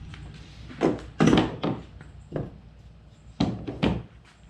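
A series of hard knocks and clunks from equipment being handled and set down: a cluster about a second in, another knock a little later, and two sharp knocks near the end.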